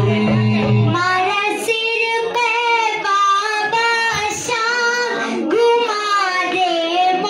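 A young girl singing a Hindi Shyam bhajan into a microphone, a continuous melodic line with long held and bending notes. Low steady instrumental accompaniment drops away a little over a second in, leaving her voice almost alone.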